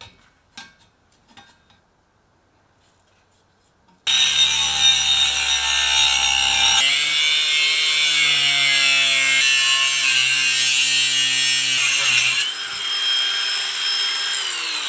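Cordless angle grinder with a cut-off wheel cutting through a laser-cut steel engine cradle: it starts suddenly about four seconds in, runs loud under load for about eight seconds, then is let off and winds down with a falling whine near the end. Before it, a few light clicks and taps.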